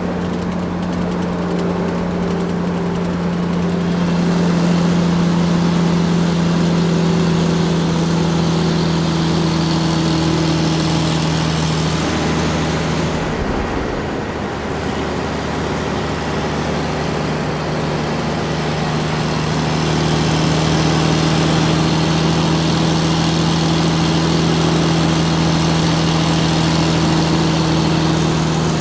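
Large truck engine running steadily under way, a deep even drone. About halfway through the engine note breaks off and dips for a moment, then settles back in and swells louder again.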